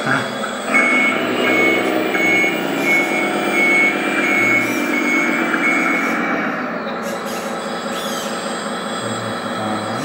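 RC model Komatsu WA480 wheel loader running, its sound module playing a diesel engine sound. From about a second in until about six and a half seconds, the module's reversing alarm sounds a run of evenly spaced beeps.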